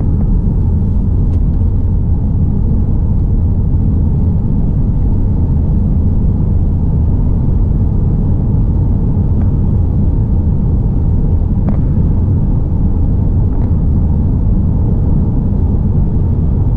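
Steady low rumble of a 2016 Volkswagen Caddy van's 1.6 engine and road noise, heard inside the cab while driving, with a few faint clicks.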